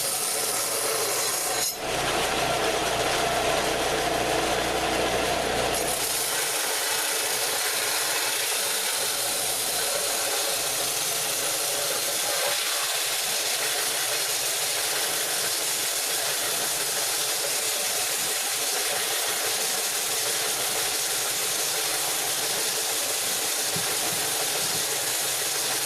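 Power tool fitted with a bristle pad, running against a steel sawmill blade and scrubbing rust and paint off the surface without taking off metal. The noise is steady, with a brief break about two seconds in.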